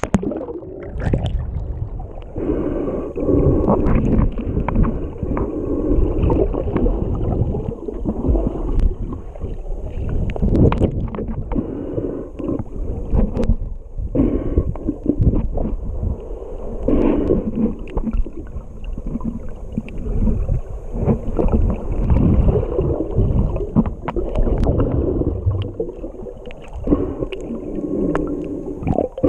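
Muffled underwater sound picked up by a submerged camera: an irregular rumbling wash of water moving against the case and bubbling, with occasional sharp clicks and knocks.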